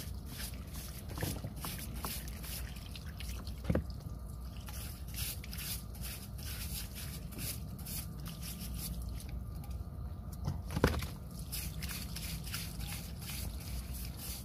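Hands working a stone loose from wet, muddy ground: faint wet dripping and squishing, with two short sharp knocks of stone, one about a quarter of the way in and a louder one about three-quarters through.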